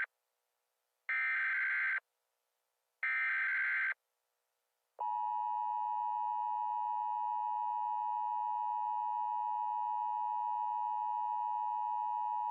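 Emergency Alert System alert tones: two short bursts of the digital SAME header data, about a second each and a second apart. About a second later the steady two-tone EAS attention signal begins and holds.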